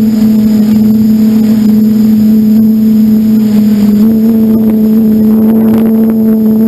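Electric motor and propeller of an FPV model aircraft droning steadily at constant throttle, picked up by the onboard camera; the pitch steps up slightly about four seconds in.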